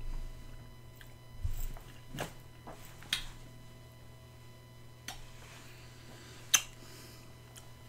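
Mouth sounds of a person tasting hot sauce off a spoon: a few scattered lip smacks and clicks over a low room hum.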